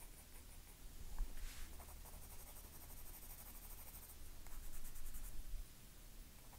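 A 4B graphite pencil shading on heavy, textured sketch paper, a faint, rapid scratching of short strokes. It grows louder about a second in and again around four and a half to five and a half seconds in.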